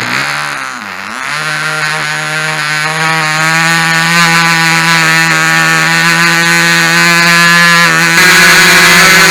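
Royal Spitfire .065 model airplane engine just fired up, its pitch wavering in the first second or so, then running at a steady high buzz that slowly climbs and steps up in pitch near the end.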